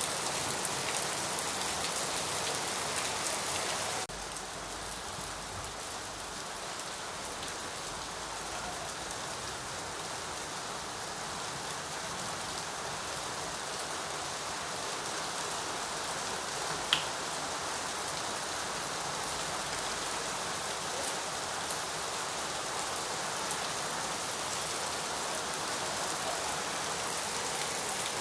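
Steady rain falling, an even hiss of many drops, which turns abruptly softer about four seconds in and then holds steady. A single sharp click stands out about two-thirds of the way through.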